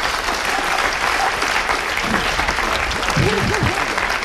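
Studio audience and contestants applauding, steady clapping throughout, with a short voice rising over it about three seconds in.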